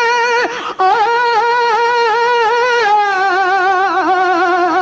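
A singer's voice holding long, wavering notes in a Tamil devotional song. The voice breaks off briefly about half a second in, then carries on and steps down to a lower held note about three seconds in.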